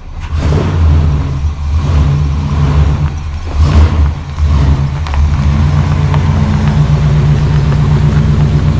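Big-block 454 V8 of a 1971 Chevy C30 truck running, with uneven swells in loudness over the first few seconds before settling into a steady idle.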